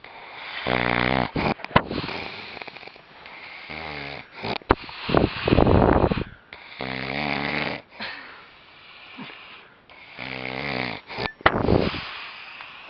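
A man snoring loudly: about four rattling snores with puffing, breathy breaths between them.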